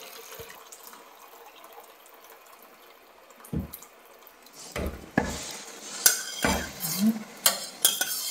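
Kitchen clatter: the faint hiss of a running tap fades, then dishes, pots and utensils are knocked and set down in a string of sharp clinks and knocks through the second half.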